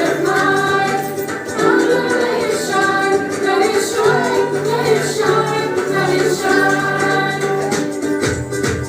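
A group of voices singing in chorus with instrumental accompaniment: held sung notes over a steady bass line.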